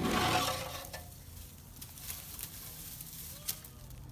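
Footsteps crunching and rustling on dry ground while walking, loudest in the first second.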